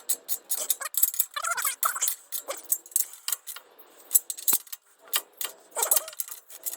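14 mm socket ratchet clicking in short irregular runs, with metal clinks, as the nuts of a downpipe exhaust clamp are tightened a little at a time.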